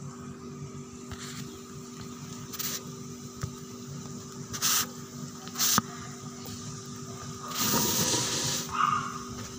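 A wok of hot oil deep-frying a large batch of chopped bawang sumenep: a steady bubbling sizzle over a low hum, with several short louder hissing spurts, the longest just before the end.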